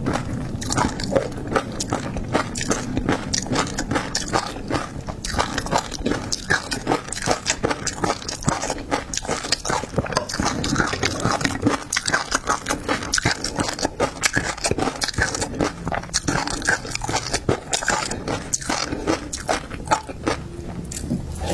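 Close-miked eating of seafood: a steady run of irregular bites, chewing and crunching.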